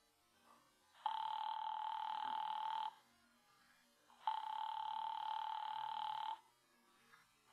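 Telephone ringing signal heard over the line, a radio-drama sound effect: a steady buzzing ring tone in two bursts of about two seconds each, with a pause between them. It is the sound of a long-distance call ringing and going unanswered.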